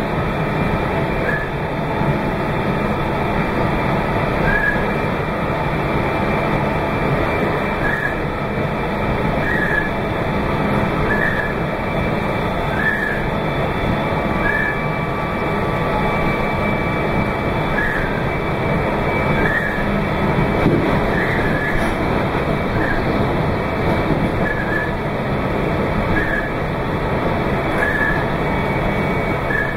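Meitetsu 2200 series limited express electric train running at speed, a steady rumble of wheels and running gear. Short high chirps repeat about every second and a half.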